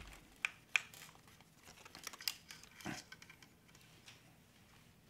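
Faint handling sounds from pulling a cleaning patch through an air rifle barrel: a few sharp clicks and light rustles, with a duller knock about three seconds in.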